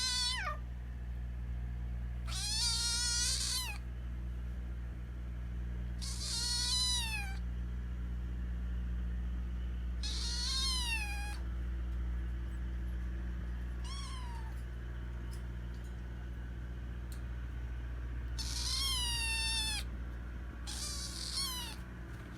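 Kitten meowing for food with a distinctive, funny-sounding cry: about six drawn-out, high-pitched calls a few seconds apart, each bending in pitch, one near the middle shorter and fainter. A steady low hum runs underneath.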